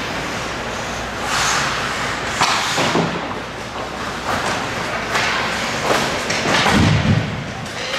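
Ice hockey play: a few sharp knocks from sticks and puck, then near the end a heavy thud as a player is body-checked into the boards.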